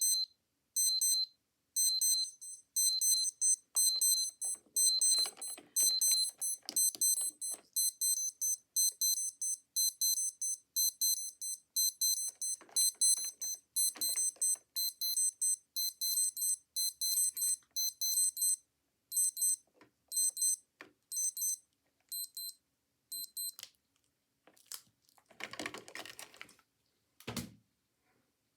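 Several digital wristwatches beeping their alarms at once: rapid, high-pitched beeps in overlapping patterns, out of step with one another. The beeping thins out and stops about 23 seconds in, followed by a little rustling and a low thump near the end.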